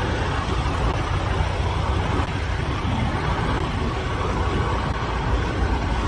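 Steady outdoor vehicle noise with a strong low rumble, continuous and without pauses.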